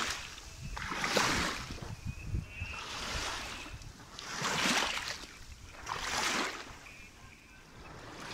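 Small waves lapping on a sandy shore, washing in about every one and a half seconds.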